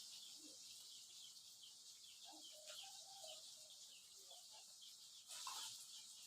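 Small mujair (tilapia) deep-frying in hot oil: a faint, steady sizzle with many tiny crackling pops as the fish dries out.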